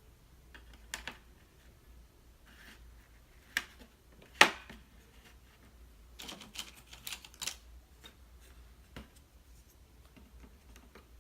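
Wooden popsicle sticks clicking and tapping as they are laid down one at a time to build a little fence, with scattered light clicks, the sharpest about four and a half seconds in and a quick run of them around six to seven seconds.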